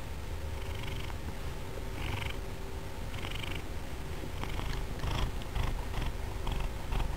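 Tabby cat purring close to the microphone: a steady low rumble with a breathy rise about once a second. About halfway through, scratchy clicks and bumps join in as the cat's face touches the microphone.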